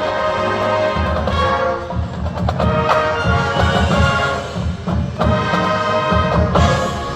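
Marching band playing: brass holding loud chords in short phrases over drum hits.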